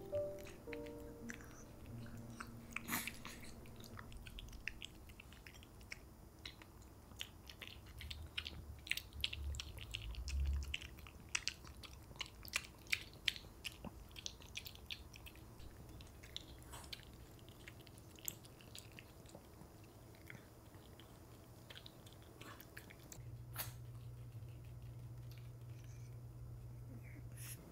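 Pomeranian eating moist food from a bowl: chewing and smacking heard as a quick run of short, sharp clicks that thins out in the second half. A steady low hum comes in near the end.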